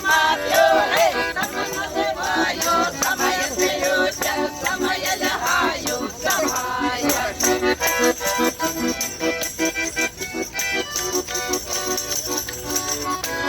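Live concert music: a voice singing over instrumental accompaniment with a steady percussion beat.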